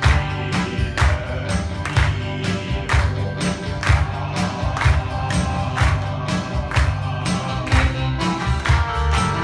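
Men singing together into microphones over a loud backing track with a steady beat and heavy bass, played through a PA system.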